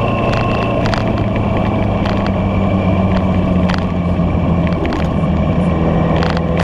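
A road vehicle's engine running at a steady cruising pace, with road and wind noise and scattered sharp clicks; the engine note dips slightly about five seconds in.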